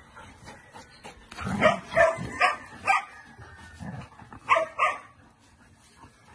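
A dog barking: four quick barks about a second and a half in, then two more just after four and a half seconds.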